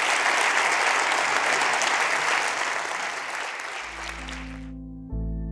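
Audience applauding, thinning out and then cutting off near the end as slow music with long held notes comes in.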